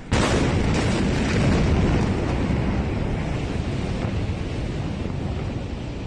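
Blast of a huge explosion: a sudden loud roar that sets in at once and rumbles on heavily, slowly easing, before cutting off suddenly near the end.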